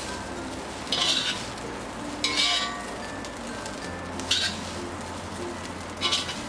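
Stainless steel slotted spatula scraping and tossing fried rice in a hot flat pan, four strokes spaced a second or two apart, over a steady sizzle.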